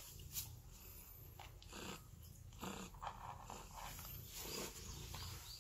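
A tortoiseshell cat making a few short, soft grumbling sounds over a low purr while it stretches and rolls.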